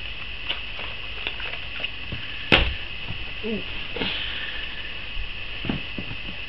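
Hands rummaging through boxed plastic lure packs in a cardboard box: scattered light clicks and rustles, with one sharp knock about two and a half seconds in, over a steady hiss.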